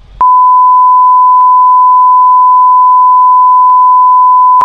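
Censor bleep: one loud, steady, high-pitched pure tone that cuts in a moment after the start and holds without change, blanking out the audio during a heated roadside argument.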